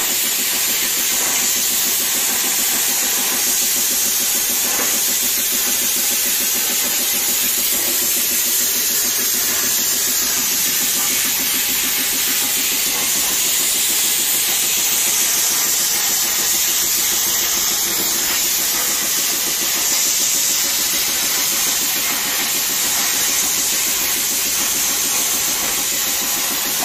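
Air plasma cutter torch cutting through the steel of a flattened oil drum: a steady hiss of compressed air and arc that runs on without a break.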